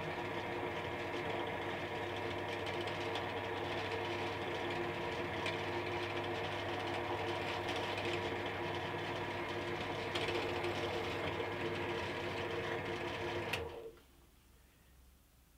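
Silverline 350W pillar drill running steadily as it drills into an aluminium bar. It is switched off about 14 seconds in with a click, and the motor sound drops away quickly.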